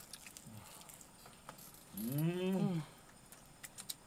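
A man's drawn-out wordless 'mmm' while eating, rising then falling in pitch, a bit under a second long about two seconds in. Light clicks of spoons and chopsticks on bowls and the pot are scattered around it.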